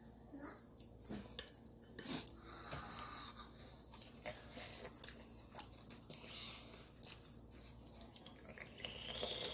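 A person eating noodles: faint slurping and chewing mouth sounds, with many small clicks.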